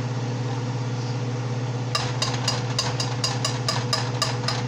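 A metal kitchen utensil clinking against a cooking pot: about eleven quick ringing strikes, roughly four a second, starting about two seconds in, over a steady low hum.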